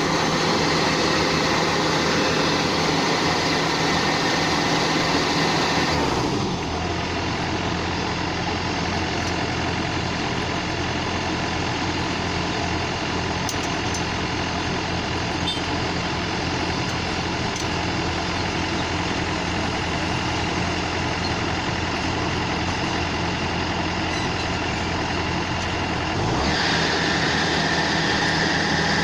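Rice combine harvester running steadily. About six seconds in the sound abruptly turns deeper and duller, and it switches back to the brighter sound near the end.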